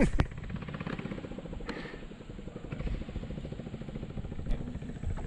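A small engine running steadily in the background, a fast even low pulsing, with a sharp click at the start and a few faint clicks.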